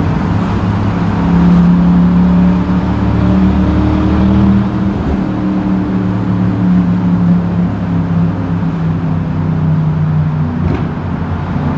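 Vauxhall Monaro VXR's 6.0-litre LS2 V8 running at fairly steady revs, a deep engine drone with small shifts in pitch, picked up through a phone microphone.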